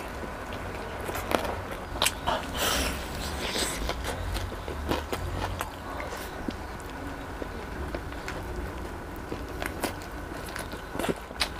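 Close-up eating sounds of a person biting and chewing fried chicken wings: crisp crackles and crunches as the coating breaks, with bursts about a second in, through the next few seconds and again near the end.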